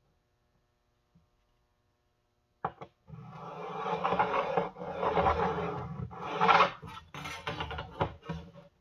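A click, then a pencil and metal straightedge scraping across a plywood sheet in several strokes as a cut line is marked out.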